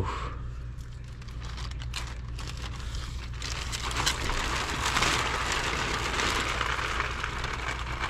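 Plastic sheeting crinkling as a cut section of drain pipe is handled inside a plastic bag, then, from about three and a half seconds in, water from the opened drain line pouring and splashing into the bag with a steady hiss.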